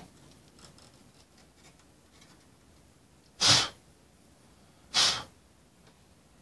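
Two short, sharp bursts of breath about a second and a half apart, close to the microphone.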